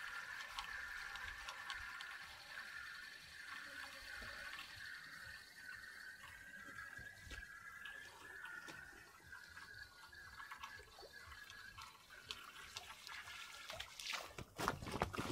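Faint lakeside ambience with a repeating high-pitched call in the background. Near the end come loud rustling and knocks as the angler pushes through the grass to his rods.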